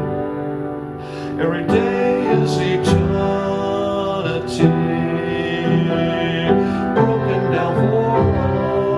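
Background music: a slow song with piano and long held notes.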